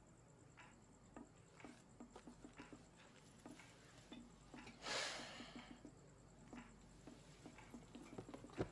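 Near silence: quiet room tone with faint scattered ticks and clicks, a short hiss about five seconds in, and a sharp click near the end.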